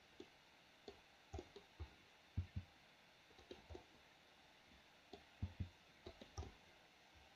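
Faint, irregular clicks of a computer mouse and keyboard, some coming in quick pairs.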